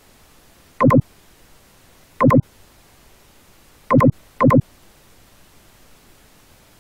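Four short electronic beeps over a faint steady hiss: two spaced about a second and a half apart, then a quick pair near the end.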